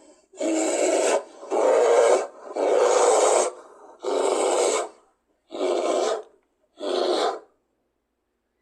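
A call presented as a creodont's: a series of six harsh, rasping roar-like breaths, each under a second long and a little over a second apart. The breaths grow shorter toward the end and stop about seven and a half seconds in.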